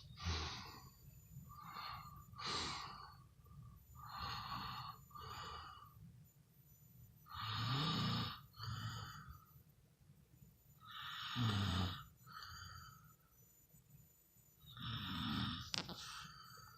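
Snoring in slow, regular breaths. Each loud snore is followed by a shorter, softer breath, about every three to four seconds, and the loudest snores come about eight, twelve and fifteen seconds in.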